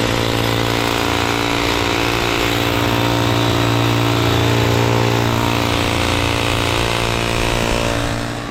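A small engine running steadily at a constant speed, loud and even, after revving up just before. It eases off slightly near the end.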